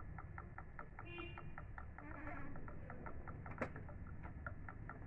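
Epson M2140 printer's mechanism ticking faintly and evenly, about six ticks a second, with one sharper click about three and a half seconds in.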